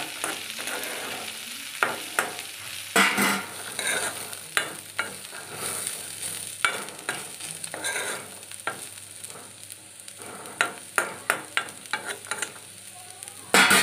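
A metal spoon stirring black gram and onions in a black kadhai, with irregular sharp clicks and scrapes of spoon against the pan over a light sizzle of frying. A louder burst of clattering comes near the end.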